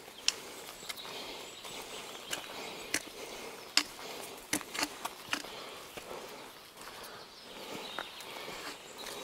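Footsteps of a person walking, with sharp clicks at uneven intervals, thickest near the middle, over a faint steady hiss of outdoor background.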